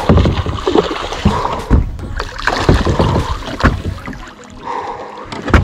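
Water splashing and sloshing against a plastic kayak hull, with irregular knocks and bumps on the hull, as a hooked musky thrashes right beside the boat. A sharp knock comes at the very end.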